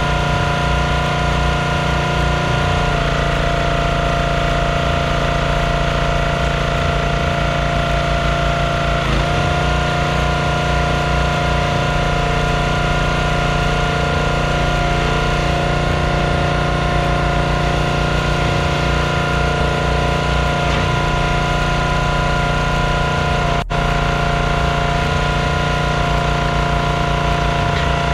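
Small gas engine of a Performance Built hydraulic log splitter running steadily while firewood is split, its note shifting slightly about three seconds in and settling back around nine seconds.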